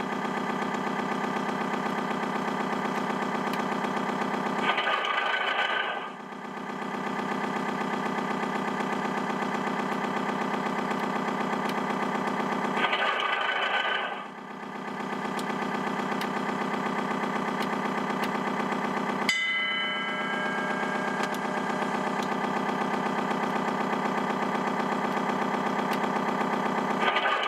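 RC tugboat model's electronic sound module playing a simulated diesel engine running steadily. The engine sample repeats about every eight seconds, each repeat marked by a short noisy patch and a brief dip. About two-thirds of the way through, a sharp click with a short ringing tone is heard.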